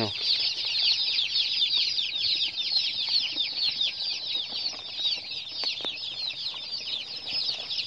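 A brooder full of newly arrived chicks, broiler chicks among them, peeping all together: a dense, continuous chorus of many overlapping high, falling peeps.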